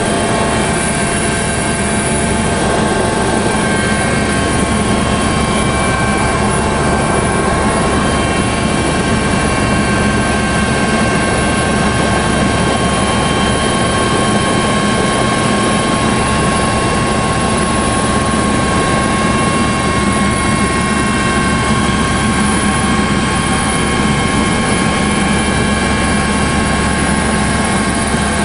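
Helicopter engine and rotor noise heard on board the helicopter: a steady, loud drone with several constant whining tones on top.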